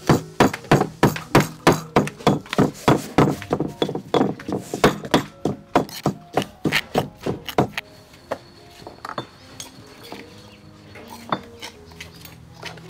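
Pestle pounding seasoning in a stone mortar, steady sharp knocks at about three strikes a second. The pounding stops about eight seconds in, leaving a few lighter scattered knocks.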